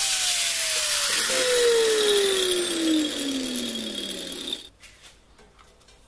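Handheld angle grinder with a sanding disc on the edge of a ceramic tile, its motor winding down: the whine falls steadily in pitch over about four seconds under a loud grinding hiss. The sound cuts off abruptly about four and a half seconds in, leaving only a few faint clicks.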